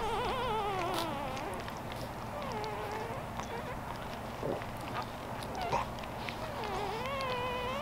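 Newborn Boston Terrier puppies, a week old, whining with wavering, warbling cries: a long falling cry at the start, a shorter one about two and a half seconds in, and a rising one near the end.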